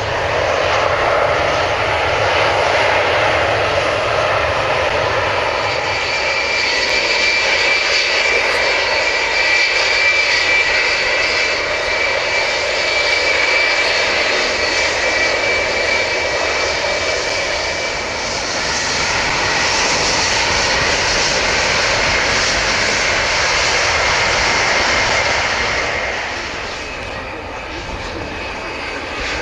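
Jet engines of airliners taxiing past: a broad rush with a steady high turbofan whine. The whine comes in about six seconds in and eases off near the end.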